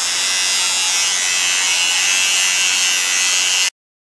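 Boteng Kemei electric shaver running against the upper lip, a loud steady buzz as it trims mustache hair; it cuts off suddenly near the end.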